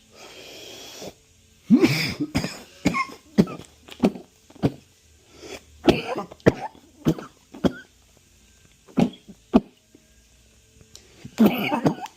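A man draws on a cannabis vape pen, about a second of steady breathy hiss, then breaks into a long coughing fit. The fit is many short, hard coughs in ragged clusters with brief pauses, the last cluster near the end.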